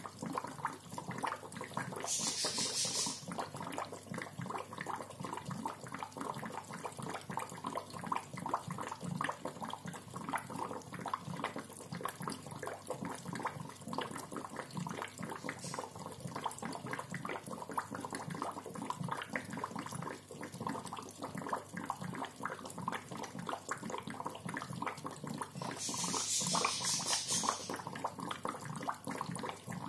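Aquarium bubbler gurgling steadily, a rapid, irregular stream of bubbles popping and splashing at the water. Two brief louder hissing bursts come about two seconds in and near the end.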